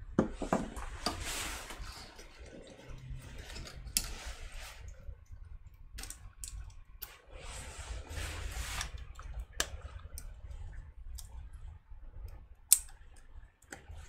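Handling noise from work on plastic parts off camera: scattered sharp clicks and a few short stretches of rustling. The loudest click comes near the end.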